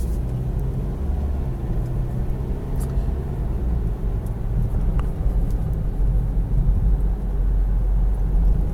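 Car cabin noise while driving: a steady low rumble of engine and road, growing a little louder in the second half.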